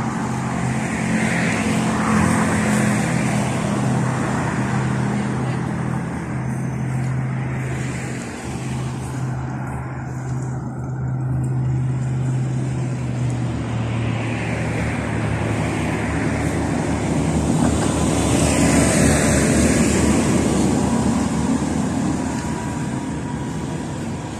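Road traffic, with cars passing close by in slow swells over a steady low engine hum that fades out about fourteen seconds in.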